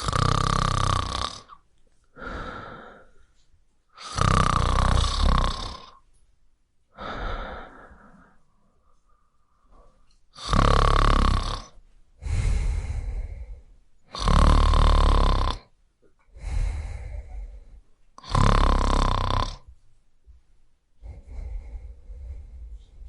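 A person snoring in a slow, regular rhythm: five loud snores about every four seconds, each followed by a quieter, shorter breath.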